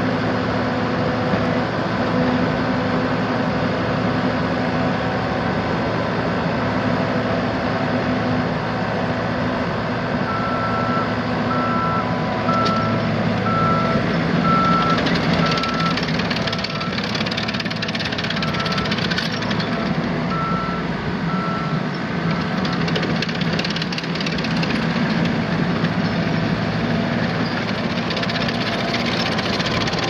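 The four-cylinder Perkins diesel of a 2008 ASV PT-100 tracked skid steer loader runs steadily. Its backup alarm beeps about once a second from about ten seconds in, for roughly thirteen seconds.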